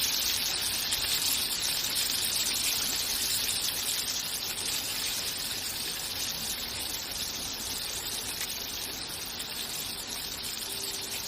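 Onion pakoda fritters deep-frying in hot oil: a steady sizzle that slowly grows quieter.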